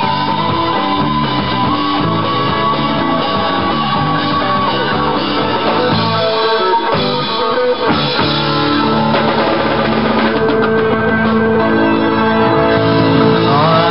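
Live jam-rock band playing an instrumental passage: electric guitar lead holding long sustained notes over a second guitar and a drum kit, with a few quick upward slides near the end.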